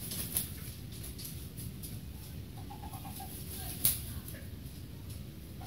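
Young Serama bantam rooster flapping its wings, with sharp flurries just after the start and about four seconds in, and a brief pulsed call from the bird around three seconds in.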